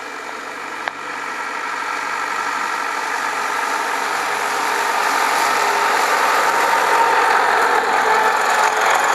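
Farm tractor engine running steadily while mowing grass with a side-mounted mower, growing gradually louder as it comes close and passes by.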